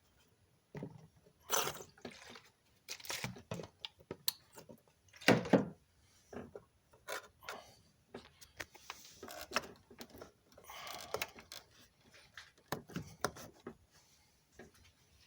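Irregular clicks, knocks and short rustling bursts, like hands and tools handling parts, with no engine running or cranking.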